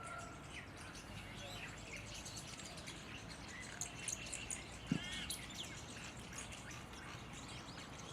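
Mynah calling: a scattered run of short chirps and sliding whistled notes. A single sharp knock sounds about five seconds in.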